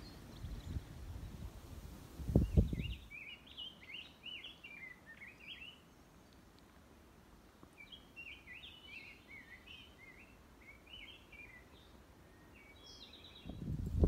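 A songbird singing quick warbling phrases in two bouts of a few seconds each, with a short one near the end. Before the song there is low rumbling noise with a thump about two and a half seconds in, and the low rumbling comes back just before the end.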